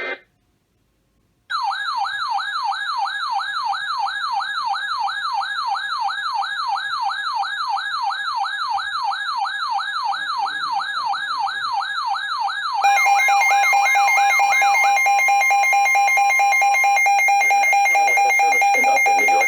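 Emergency alert tones: after a short silence, an electronic tone warbles rapidly up and down like a siren, about three to four sweeps a second. About 13 s in, a louder steady buzzing attention tone takes over.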